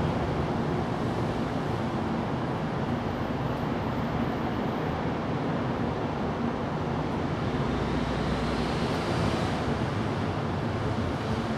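Steady outdoor background rush, with no distinct event standing out.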